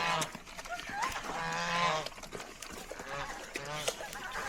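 Geese honking: a short call at the start, a longer drawn-out call about a second in, then several shorter calls near the end.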